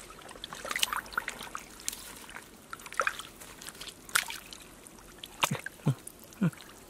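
Shallow muddy water sloshing and splashing as it is stirred by hand and foot, with scattered sharp splashes and a few plops toward the end.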